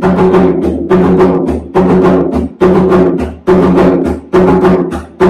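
Bomba barrel drum, the lower-toned buleador, played by hand in the yubá rhythm: a phrase of several ringing strokes repeating a little faster than once a second.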